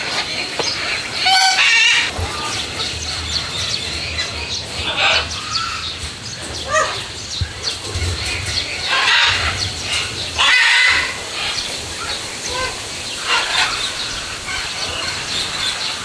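Parrots in the aviaries calling: short calls come every few seconds, a few of them louder than the rest.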